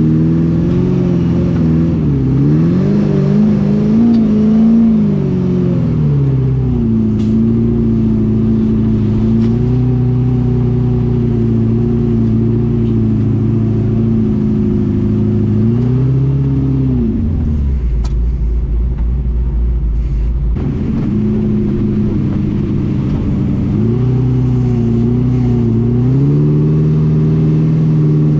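Engine of an FJ40-based off-road buggy heard from on board, revving up and down, then holding a steady pace. About two-thirds through it drops to a low rumble for a few seconds before picking up again.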